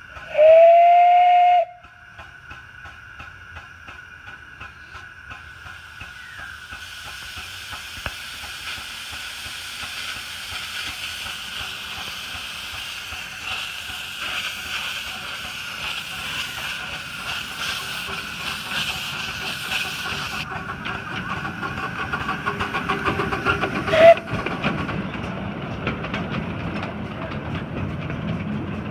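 A 7.25 in gauge Tinkerbell-class live steam locomotive gives one loud whistle toot of about a second and a half, then moves off with steam hissing from its open cylinder drain cocks and a steady exhaust beat that grows louder as it comes close. It gives a second, short toot about 24 seconds in.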